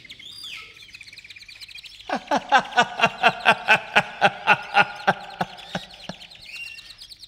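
A laugh: a quick run of "ha-ha" pulses, about four a second, starting about two seconds in and fading out by about six seconds, over a background of chirping birds.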